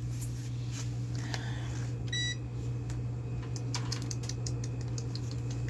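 A steady low hum runs throughout. About two seconds in, a handheld electronic meter gives one short, high beep, followed by scattered small clicks and taps of tool handling as it is readied for an amperage reading.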